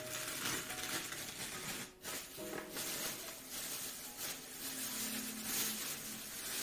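Wood fire in a fireplace crackling and hissing steadily, with a few faint, soft piano notes held underneath.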